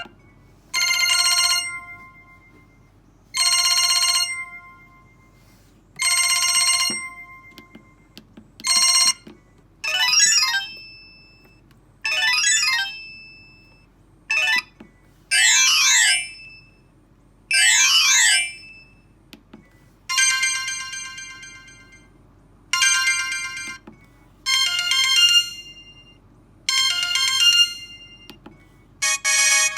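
Samsung SGH-E390 mobile phone ringtones playing: short electronic melody phrases of about a second each, repeating every two to three seconds. The tune changes a few times, and in one stretch the notes sweep up and down in pitch.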